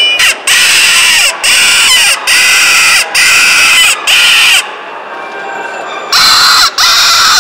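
Mouth-blown predator call for luring predators, held in cupped hands and blown in a series of loud, drawn-out squealing cries, about six in a row. After a pause of about a second and a half near the end, two more cries follow.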